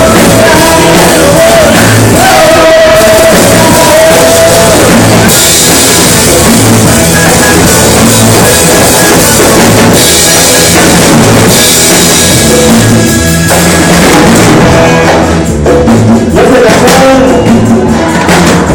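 Rock band music: a drum kit keeps a steady beat under held melody notes, with a bright cymbal wash from about five seconds in, and the drums turn choppier near the end.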